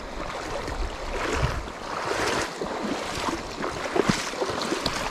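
Shallow creek water splashing irregularly as a hooked smallmouth bass thrashes at the surface near the angler's feet while being landed, with a few sharper splashes about two and four seconds in.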